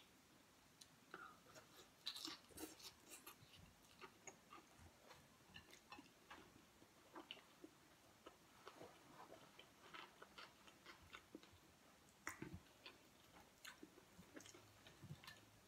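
Soft, close chewing and lip-smacking of a person eating beef and rice by hand, a scatter of small wet clicks and smacks at irregular intervals. A faint low hum comes in near the end.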